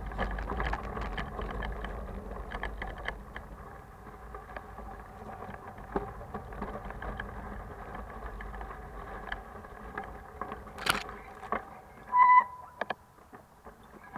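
Fully loaded touring bicycle rolling over a rough dirt trail: a steady rumble with constant rattling and clicking from the bike and its packed luggage. A sharp knock comes about eleven seconds in, and a brief high squeak, the loudest sound, follows a second later.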